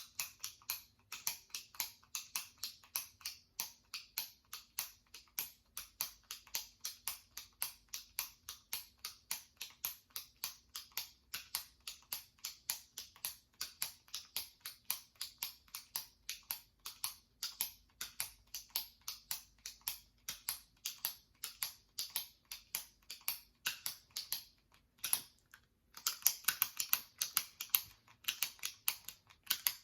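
Jumbo retractable pen clicking as its top button is pressed over and over, in rapid sharp clicks, about three a second. Near the end there is a short pause, after which the clicks come louder.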